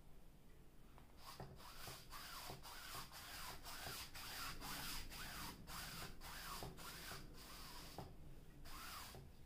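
Foam brush stroked back and forth over a stretched canvas, spreading varnish: a rhythmic rubbing of about two strokes a second, each with a short rising-and-falling squeak. It starts about a second in, pauses near the end, then gives one last stroke.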